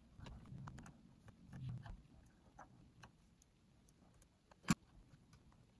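Faint light clicks and taps of hand soldering on a cassette player's circuit board, with a soft low rumble in the first two seconds and one sharp click about three-quarters of the way through.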